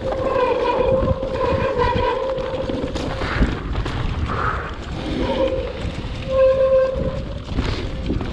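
Mountain bike riding down a trail: wind buffeting the microphone over a constant rumble of tyres on the ground. A steady mid-pitched whine sounds through the first two seconds, fades, and comes back about six and a half seconds in.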